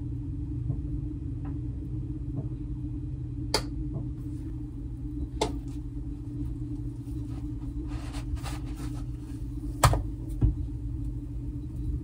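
A chocolate pancake being cooked in a nonstick frying pan over a steady low hum. A few light clicks of metal and silicone utensils touch the pan, then a sharp knock and a low thump about ten seconds in as the pancake is flipped with a silicone spatula.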